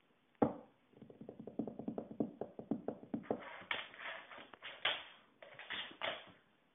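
A sharp knock, then a quick, even run of light clicks at about nine a second, then a few louder scuffing taps: a Shetland sheepdog's claws on a hard floor.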